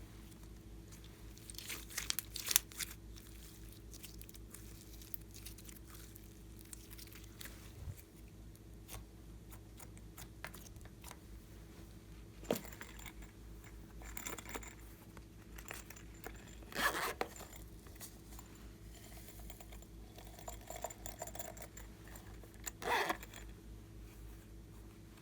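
Handling of slime-making materials: scattered crinkling, tearing and scraping noises, loudest near the start, about halfway through and near the end, over a steady low hum.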